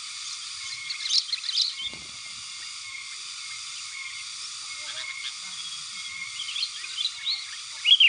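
Sooty-headed bulbuls chirping and calling in short bursts, a cluster about a second in and more near the end, over a steady high background drone.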